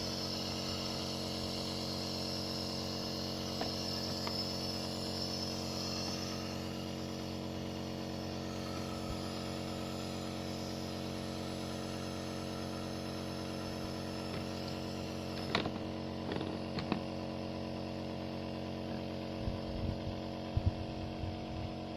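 Compressor nebulizer running with a steady buzzing hum, delivering a mist treatment to a cat with asthma. A few short knocks sound about two-thirds of the way through.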